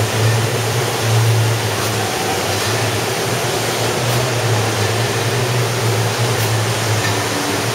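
Brewery bottling line running: a steady low hum over a dense mechanical rush from the filler and bottle conveyors, with a faint high hiss coming back about every two seconds.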